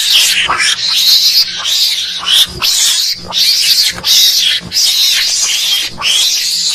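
Mongoose calls played as a hunting lure: a loud, rapid series of harsh, hissing screeches, each under a second long, coming about one and a half to two a second with hardly a pause.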